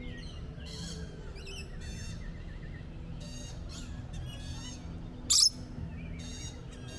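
Rainbow lorikeets chattering with a run of short, harsh, high calls, and one much louder screech about five seconds in.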